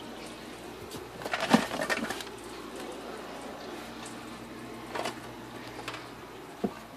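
A few short plastic clicks and rattles from a case full of fidget spinners being handled. The loudest cluster comes about one and a half seconds in, with single clicks later on.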